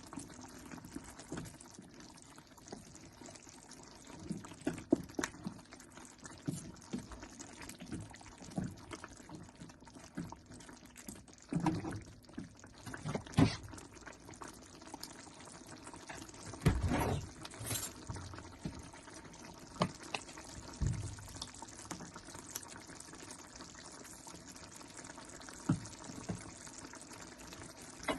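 Kitchen food preparation: scattered knocks and clinks of utensils, with wet liquid sounds of pouring and dripping.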